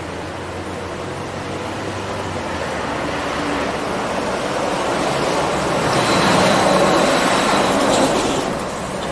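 A large vehicle passing on the street: its noise builds over several seconds, peaks, then drops away near the end.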